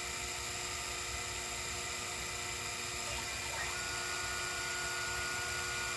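Sherline 5000 milling machine running under CNC control: the spindle motor whirs steadily, and a thin high steady whine joins a little past halfway through.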